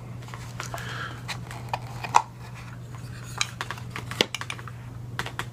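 Small hard objects being handled: scattered light clicks and taps, a couple a little sharper, over a steady low electrical hum.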